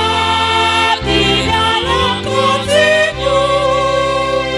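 Church congregation singing a hymn together with instrumental accompaniment: long sung notes with a slight waver in pitch over steady held chords that change about every second.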